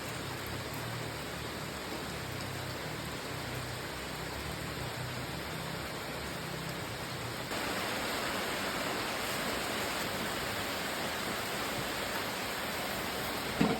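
Steady sizzling hiss of food frying in a wok, getting a little brighter and louder about seven and a half seconds in.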